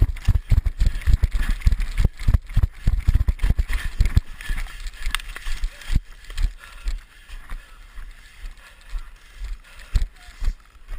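Thumps and rattling of footsteps and gear close to a body-worn camera microphone, fast and dense for about the first four seconds, then slower and sparser.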